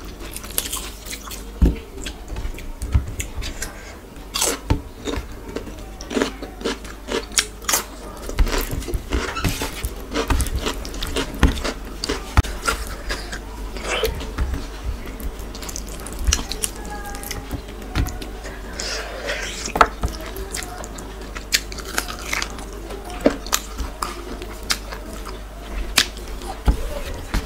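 Close-miked eating with the fingers: soft, wet khichuri mixed by hand, then chewing mouthfuls of rice and chicken, with many short, sharp mouth clicks and smacks.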